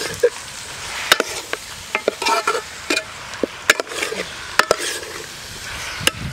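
Marinated duck pieces sizzling in oil and masala in a steel pot while steel tongs stir them, the tongs clicking and scraping against the pot at irregular intervals.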